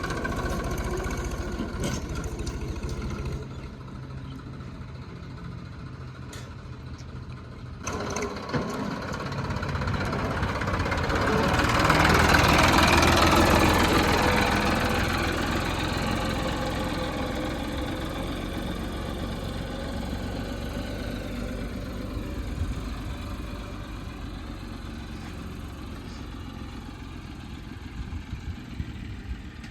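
Heavy diesel engine running at a steady pitch. It grows louder to a peak about twelve seconds in, then slowly fades, with a few light clicks in the first eight seconds.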